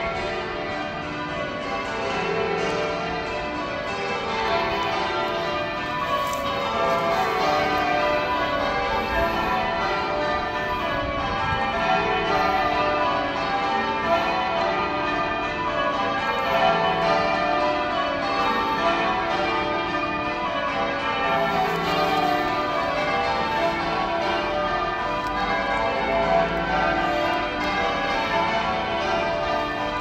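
Change ringing on the church bells of Manchester Cathedral's tower: a continuous, overlapping stream of bell strokes in changing order.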